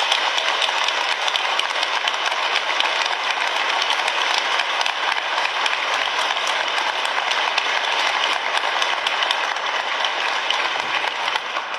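Audience applauding: a long, steady round of clapping that fades out near the end.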